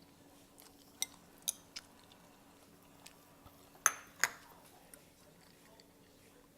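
Eating utensils clinking against a dish: three light taps, then two louder ringing clinks about half a second apart.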